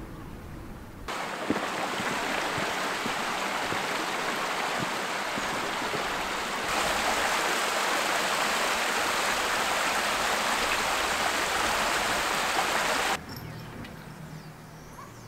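Small fast-flowing stream rushing over stones: steady water noise that gets louder about halfway through and cuts off suddenly near the end.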